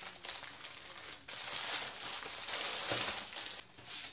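Clear plastic garment bag crinkling and rustling as it is pulled open by hand, getting louder near the end and then stopping.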